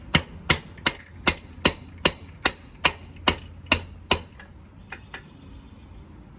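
Mallet tapping the rear wheel axle of a Suzuki GSX-S 750 through the hub and spacer toward the far side of the swingarm. About a dozen evenly spaced strikes come at roughly two and a half a second, some with a brief metallic ring. Two lighter taps follow about five seconds in, then the hammering stops.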